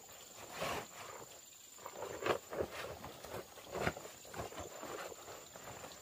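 Rustling of a heavy waterproof protective suit and rubber boots scuffing on a concrete step as the suit is adjusted, in irregular bursts with the loudest about a second in, halfway, and near two-thirds of the way through.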